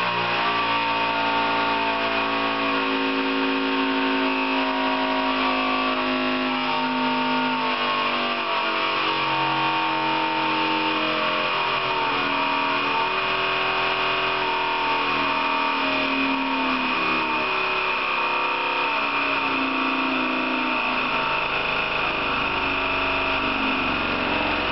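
Servo-hydraulic testing machine running as it shakes a long strip clamped in its hydraulic wedge grip: a steady mechanical hum and whine made of several tones that shift in pitch every second or so, with a few gliding tones part-way through.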